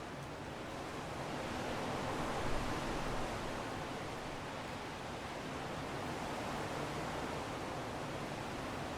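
Strong wind blowing as a steady rushing noise, swelling into a gust about two seconds in and then easing back.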